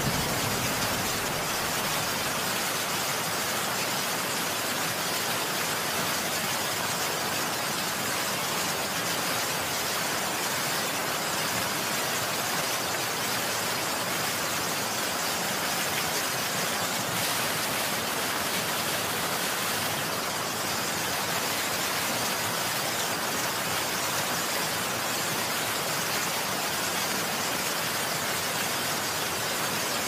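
Heavy rain falling steadily, an even hiss with no single drops or rhythm standing out. The tail of a thunder rumble dies away at the very start.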